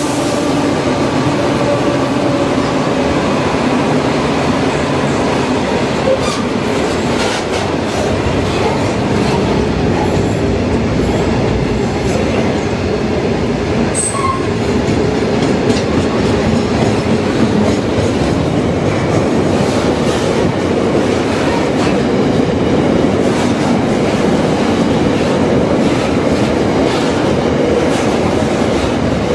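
A long freight train's container wagons rolling past at speed: a steady loud rumble and rattle of wheels on rail, with scattered clicks. A faint engine hum from the diesel locomotive that has just passed fades out over the first several seconds.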